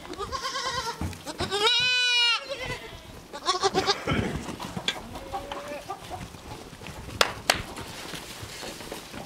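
Goat kids bleating: one loud, quavering bleat about two seconds in, with shorter, fainter bleats before and after it. Two sharp knocks near the end.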